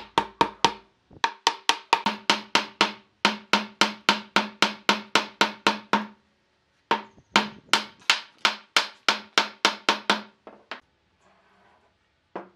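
Wooden chair parts being knocked with rapid blows, about four a second, in several runs with short pauses, driving the strips into their slotted joints. Each knock rings briefly in the wood. One last single knock comes near the end.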